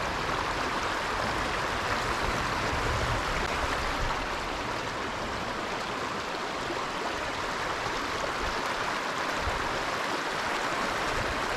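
Small stream running over shallow riffles, a steady, even rush of flowing water.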